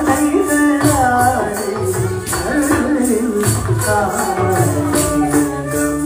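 Carnatic music for a Bharatanatyam shabdam: a voice singing a wavering melodic line over a steady drone, with a jingling beat about four times a second and low drum strokes.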